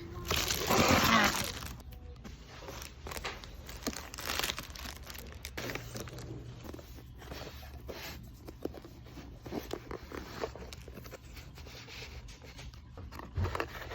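Crinkling and rustling, with a louder tearing-like burst about half a second in, then scattered small clicks and crackles.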